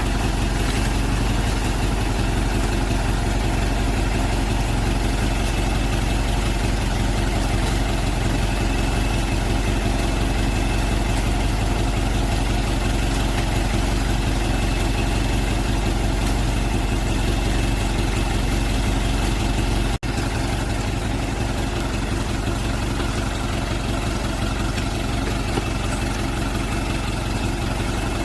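Truck engine running steadily at an even speed, a low hum with a faint thin whine above it. The sound breaks off for an instant about twenty seconds in and carries on slightly quieter.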